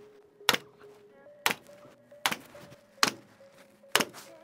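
Pneumatic staple gun firing about six times, roughly one shot a second, fastening speaker wire to the roof framing, with faint background music underneath.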